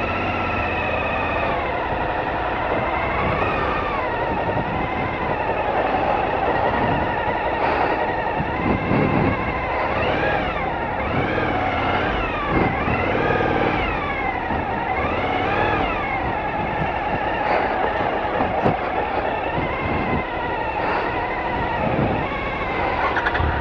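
Motorcycle engine running at low speed, its pitch rising and falling again and again as the throttle is opened and closed, over a steady rumble.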